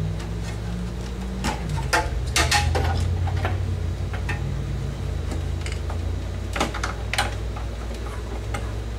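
Scattered clicks and knocks of power-supply cable connectors being pulled from their sockets inside a desktop computer case, with a steady low hum underneath.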